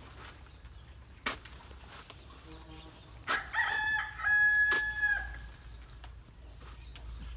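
A rooster crowing once, a call of about two seconds starting about halfway through, held steady in the middle before falling away. A few sharp knocks sound around it.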